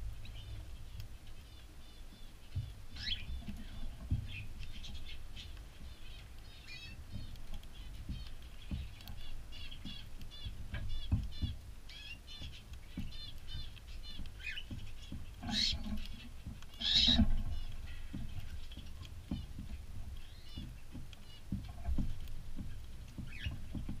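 Cockatiels chirping throughout in many short repeated notes, with two louder calls a little past the middle, over scattered low knocks and bumps.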